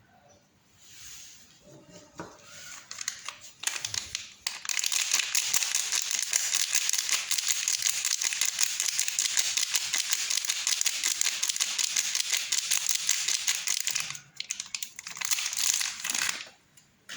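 Wrapper of a bar of soap crinkling as it is unwrapped: a few soft rustles, then about ten seconds of dense, continuous crackling, and a shorter burst near the end.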